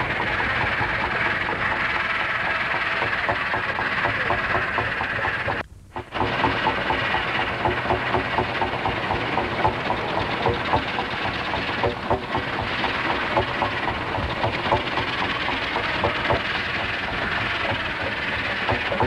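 Vintage tractor engine running with a steady, rapid chuffing beat. The sound cuts out briefly about six seconds in, then the same beat carries on.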